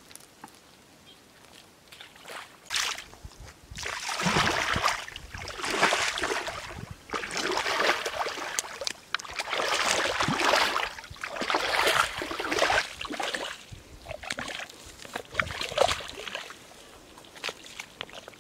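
Water splashing and sloshing in a run of one-second surges, starting about three seconds in and dying away near the end.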